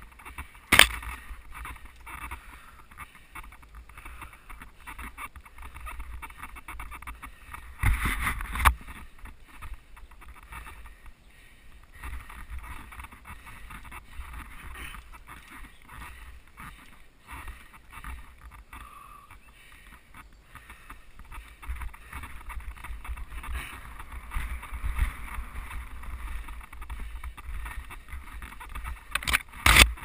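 Mountain bike riding over a dirt singletrack, heard from a camera on the moving rider: a steady rumble and rattle of tyres and frame over the trail, with wind on the microphone. Sharp knocks from bumps sound about a second in, around eight seconds in, and again near the end.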